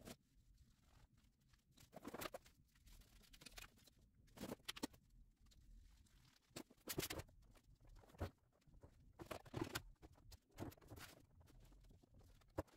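Faint, scattered clicks and rustles of small parts being handled, at irregular intervals, the loudest about seven seconds in.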